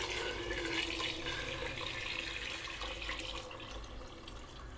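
Water pouring from a steel vessel into an aluminium pressure cooker of chicken masala gravy: a steady splashing pour into liquid that trails off near the end.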